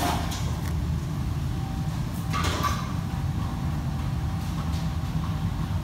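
Commercial kitchen background: a steady low rumble of fans or ventilation with a faint thin steady tone, and a clatter of kitchen things about two and a half seconds in.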